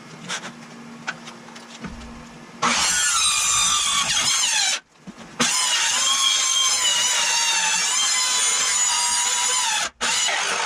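Circular saw cutting through an MDF sheet: a few light handling clicks, then from nearly three seconds in the saw runs with a loud high whine and hiss as the blade cuts. The sound breaks off abruptly twice, once for about half a second and once for an instant near the end.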